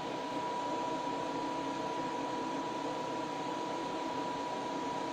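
Steady background hiss with a thin, constant high tone over it, unchanging. It is the kind of sound a running fan or other small machine makes.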